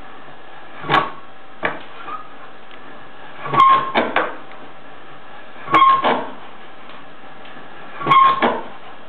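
Old meat grinder working, giving a short squeak or creak about every two seconds, four times, over a steady background noise.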